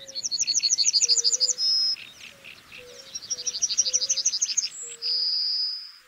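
Male yellowhammer singing two songs. Each is a rapid run of repeated short high notes ending in a drawn-out final note, the 'little bit of bread and no cheese' pattern. The second song ends with a short higher note, then a longer held one.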